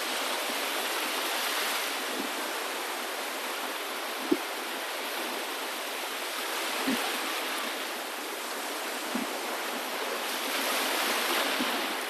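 Steady rush of moving water, swelling louder near the end, with a few brief soft thumps.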